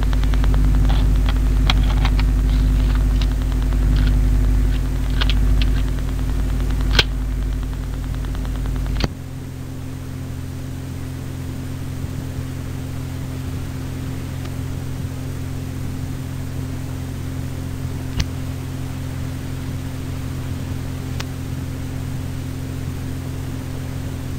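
Steady hiss and mains hum with scattered clicks, no speech. About nine seconds in, a heavier low hum cuts off suddenly with a click, leaving a quieter steady hiss and hum.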